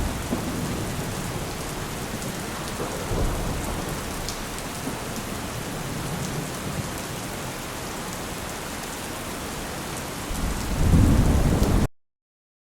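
Steady heavy rain falling with low thunder rumbling in the background; a louder roll of thunder builds near the end, then the sound cuts off abruptly.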